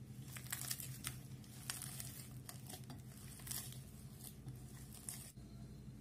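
Soft, loose maida dough being kneaded by hand in a ceramic bowl: faint, irregular squishing and sticky crackling as it is pressed and folded, stopping about five seconds in. A steady low hum lies underneath.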